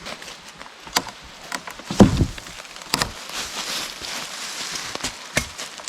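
Hand saw cutting through a dead ash branch in rasping strokes, with irregular knocks of the blade and wood roughly once a second. The loudest is a deep thump about two seconds in.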